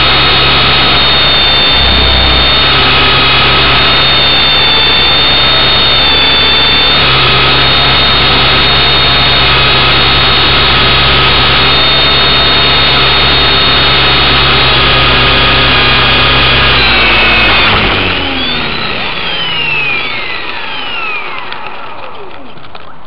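Electric motor of a small radio-controlled model aircraft running at a steady high whine, heard close from a camera on board. About 17 seconds in the motor cuts and the whine falls away as it spins down.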